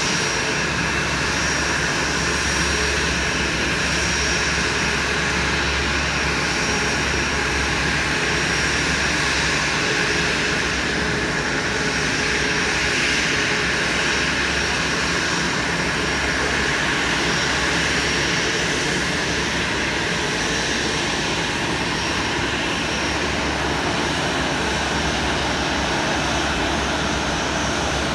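Jet airliner engines running with a steady noise and a thin high whine, holding level and unchanging throughout.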